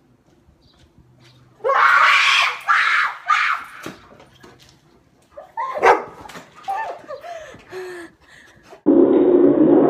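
A woman screams in fright three times, then a dog barks and yelps in short bursts. Near the end the sound cuts abruptly to a slowed-down replay, low and drawn out.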